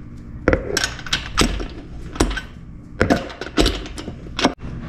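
Irregular clicks and knocks, about a dozen, from handling and fastening a dog treadmill's cover with its bolt and nut.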